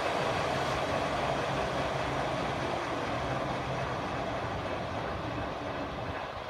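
A 26" x 115" Kingston Heavy Duty 24 gap-bed engine lathe running under power, its chuck spinning, giving a steady mechanical hum that grows slightly quieter toward the end.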